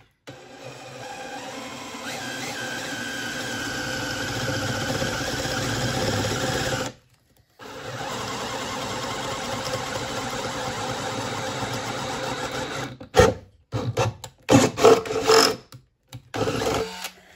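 Cordless drill boring through a boat's aluminium: the motor runs steadily under load for about seven seconds, stops briefly, runs again for about five seconds, then gives several short bursts near the end.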